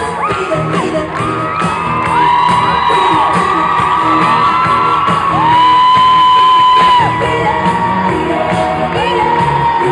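Pop music playing loudly through an arena sound system with a steady beat, with voices whooping and shouting over it. A long held high note about halfway through is the loudest moment.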